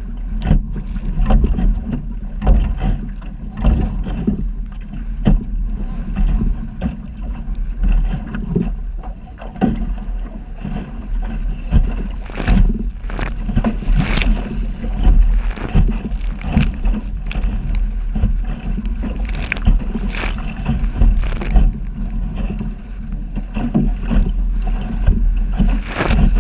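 Wind buffeting the microphone of a camera mounted on a sailing dinghy's bow, with choppy waves slapping the fibreglass hull and spray striking again and again, the hits coming thickest in the middle and again later on.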